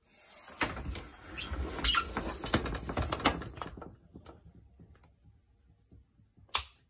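Scratchy rustling and scraping with many sharp clicks for the first few seconds, handling noise from the phone being moved and brushed against the boiler cabinet, then dying down to scattered ticks. A single sharp click comes near the end.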